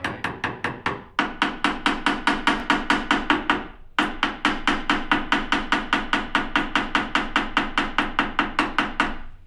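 Hammer tapping rapidly and steadily, about five blows a second, at a rusted elevator bolt in the camper floor, with two brief breaks about one and four seconds in.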